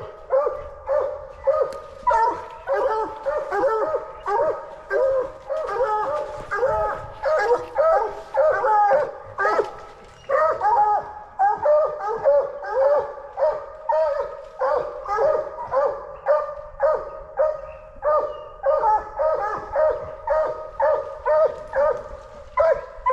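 Coonhounds barking in a steady, rapid chop, more than one dog, about two barks a second with overlapping pitches, easing briefly about ten seconds in.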